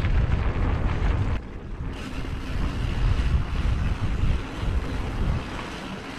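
Wind buffeting the microphone of a camera on a mountain bike riding a dirt trail, a steady low rumble that eases briefly about a second and a half in.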